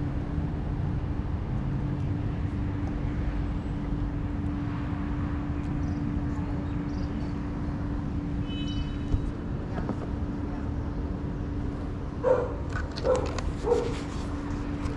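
Steady outdoor traffic rumble with a constant hum. A brief high beep comes about halfway through, and a dog barks three times near the end.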